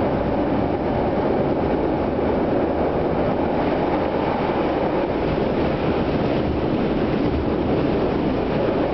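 A CTA 2200-series rapid-transit car running at speed, heard from inside the car: a steady, even running noise of wheels on rail and the car's equipment, with no separate clicks or squeals.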